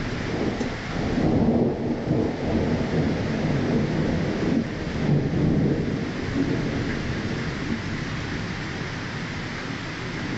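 Thunder rolling over steady rain. The low rumble swells about a second in and again around five seconds, then slowly dies away while the rain hiss carries on.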